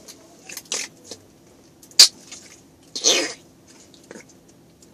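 Noise putty squished with fingers in its plastic tub, giving a few short squelches, with a sharp pop about two seconds in and the longest squelch about a second later.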